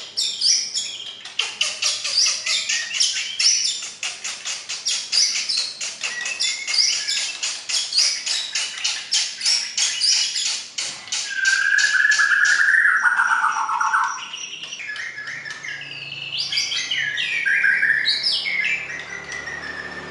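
White-rumped shama singing. It gives a long rapid train of sharp notes, about four or five a second. Then comes a lower warbled phrase about eleven seconds in, and varied quick whistles near the end.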